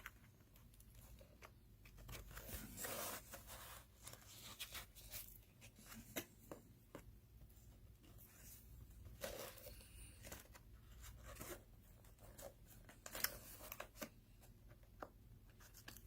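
Faint, intermittent tearing and rustling of packaging as a shrink-wrapped product box is worked open by hand, with scattered small clicks and taps.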